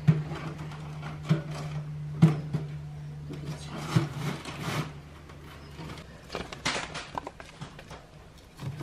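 Metal stovepipe of a wood-burning stove being worked into place: a series of sharp knocks and scrapes of metal on metal, over a steady low hum that lasts until about two thirds of the way through.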